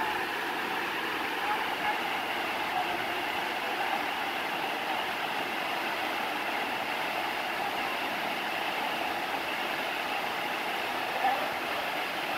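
Waterfall pouring into its plunge pool: a steady rushing of falling water.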